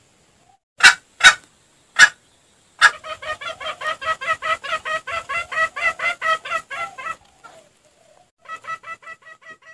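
Junglefowl calls from a lure recording: three short, loud, sharp notes in the first two seconds, then a long run of rapid clucking at about six notes a second, which breaks off and starts again near the end.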